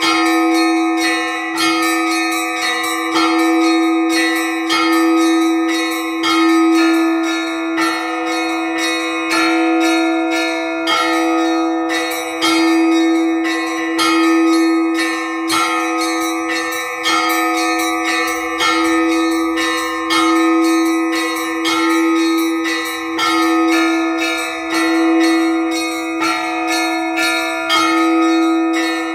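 Orthodox church bells rung in a simple cyclic peal: quick repeated strikes on the smaller bells over a lower bell that rings about every two seconds.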